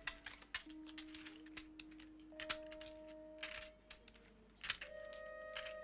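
Poker chips clicking together in quick, irregular clicks as they are stacked and handled, over quiet background music of long held notes.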